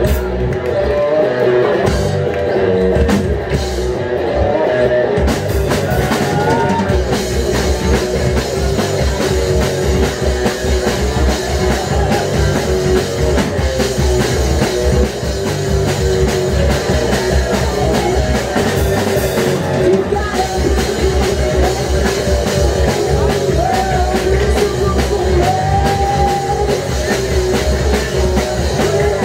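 Live rock band playing: electric guitars, bass and drum kit with a woman singing, heard from the audience. The cymbals and the full drum beat come in about six seconds in.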